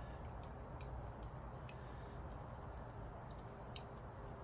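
Faint steady high-pitched cricket chorus over a low hum, with faint ticks and one light click near the end.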